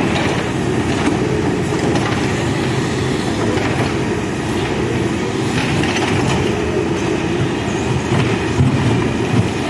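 Diesel engine of a backhoe loader running steadily under load while digging, with a dense low rumble and a few louder knocks near the end.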